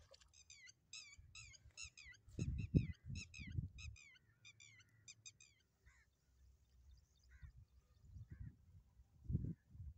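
A bird calling: a rapid run of short, falling, high-pitched chirps in quick groups, then fainter single chirps. Low thumps come a few seconds in and again near the end.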